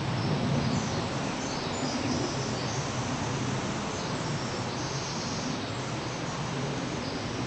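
Steady distant roar of military jet aircraft overhead, with faint high bird chirps above it.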